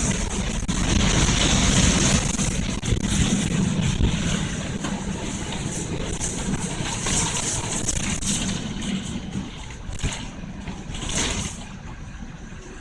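Steady running noise of a moving vehicle heard from on board: engine and road rumble with wind noise. It gets quieter over the last few seconds, with a brief louder hiss shortly before the end.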